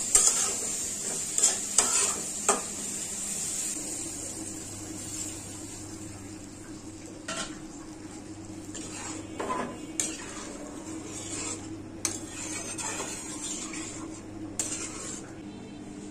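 A metal spatula stirring and scraping tomatoes frying in a steel pan, with sizzling and quick clatter for the first few seconds. Then it goes quieter, with a few sharp clinks of a spoon against the pan.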